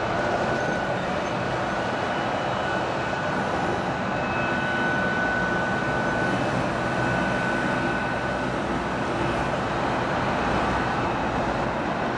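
Boeing 737 jetliner's engines running as it rolls along the runway: a steady roar with a faint high whine held over it.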